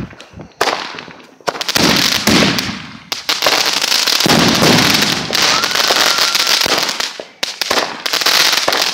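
Consumer fireworks going off: a dense run of crackling and popping over a loud hiss, starting about a second and a half in, with a short break near the end.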